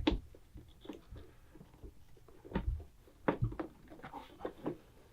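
Scattered small knocks and clicks, about half a dozen, of hands working a screw through the filler pad into the Tour-Pak mount. The loudest come about two and a half and three and a half seconds in.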